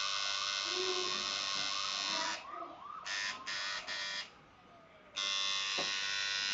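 Electric tattoo machine buzzing steadily. It cuts off a little over two seconds in, gives three short buzzes, goes quiet for about a second, then starts running steadily again.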